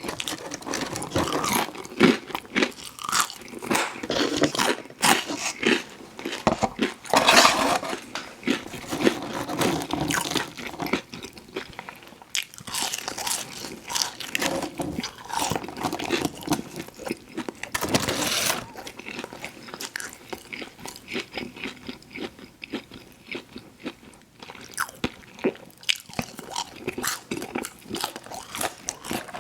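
Crunching bites into crispy fried food, followed by chewing. The loudest crunches come about seven and eighteen seconds in.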